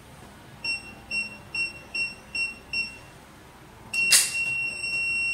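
Morningtech keypad access unit beeping as a code is keyed in: six short high beeps, one per key press, then the hash key brings a long steady beep, the sign that the code is accepted for unlocking. A loud clack comes as the long beep starts.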